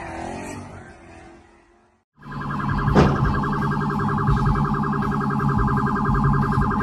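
A car horn held down in one long continuous blast of about five and a half seconds, starting suddenly just after a brief silence and cutting off abruptly.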